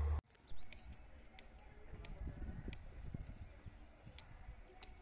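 A passing train's noise cuts off abruptly right at the start. Then a small bird gives short, high chirps, about one every two-thirds of a second with a short break midway, over a faint low rumble.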